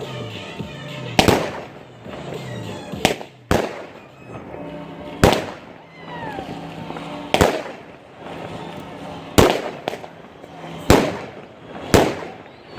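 Aerial firework shells bursting: about eight sharp bangs, one to two seconds apart, each followed by a short echoing tail.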